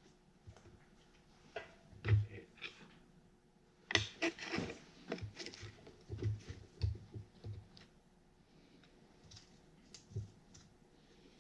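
Irregular clicks and knocks of hand tools and loose bolts on a Farmall H transmission top cover as it is worked at, with a busy cluster about four seconds in and scattered knocks after.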